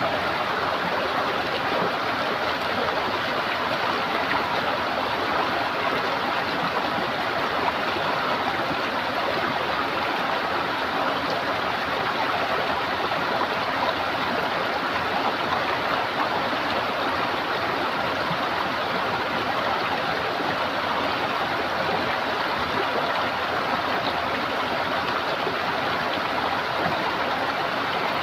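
Running water gurgling steadily in a stream.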